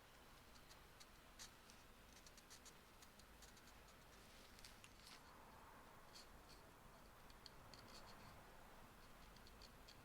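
Carving knife whittling ginkgo wood: faint, irregular short scraping cuts, the soft shaving sound of the blade taking off thin slivers.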